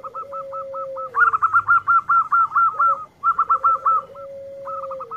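Zebra dove (perkutut) singing: quick runs of short, hooked cooing notes, several a second, loudest through the middle, over a long drawn-out lower note that comes twice and falls at its end.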